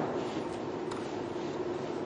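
Steady background hum and hiss, with a single faint click about a second in.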